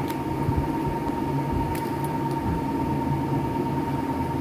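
Steady low mechanical rumble and hum with a constant thin high tone running through it, and a few faint clicks from a lipstick and its packaging being handled.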